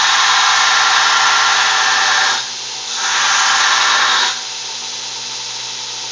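Homemade grinder driven by a 1.5 HP electric motor, running steadily with a constant hum. Work is pressed against it twice, giving a loud grinding rasp for about two seconds, a short break, then another for about a second and a half, before it runs on unloaded.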